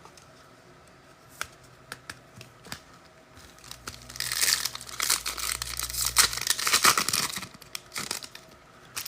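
Foil trading-card pack wrapper being torn open and crinkled. A few faint clicks come first, then about three and a half seconds in the crinkling and tearing run for about four seconds.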